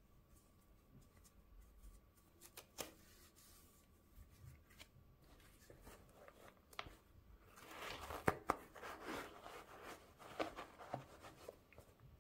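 Faint handling noises: a few scattered light clicks and taps, then a few seconds of rustling with sharper taps starting about eight seconds in.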